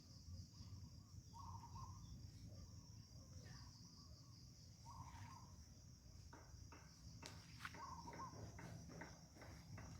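Faint steady chirring of crickets or other insects, with a short call, likely a bird's, repeating three times over it. A few light clicks come in the later seconds.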